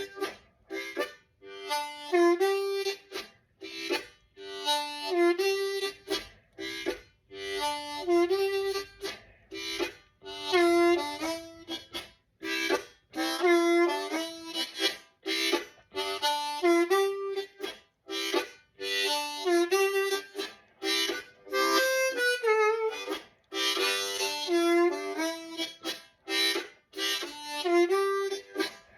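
Unaccompanied blues harmonica, a C diatonic harp played in second position in G, with short licks on the 1, 4 and 5 chords of a 12-bar blues and rhythmic chord chugging between them, in short phrases with brief silences.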